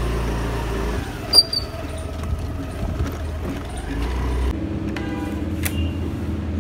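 Small Honda fuel-injected scooter engine running while the scooter is ridden along, with a steady low hum. About four and a half seconds in the sound changes abruptly to a different steady hum.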